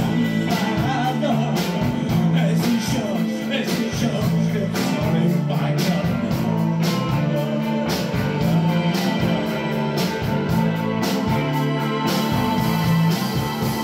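Live rock band playing an instrumental stretch of a song: electric guitar and electric bass over drums keeping a steady beat of about two hits a second.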